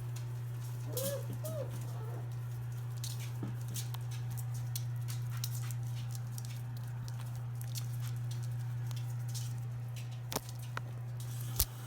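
Five-week-old Labrador puppies scrabbling about, their paws and claws making scattered small clicks and patters, with two short high squeaks from a puppy about a second in. A steady low hum runs underneath.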